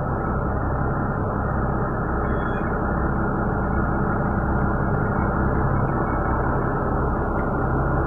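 Heli forklift's engine idling steadily with a low, even hum.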